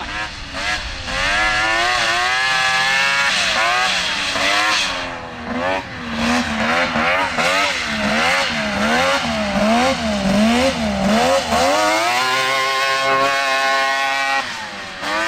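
Two-stroke engine of a track-converted Can-Am Maverick X3 side-by-side under way, its revs rising and falling over and over, about twice a second through the middle, then holding a steady high rev before dropping briefly near the end.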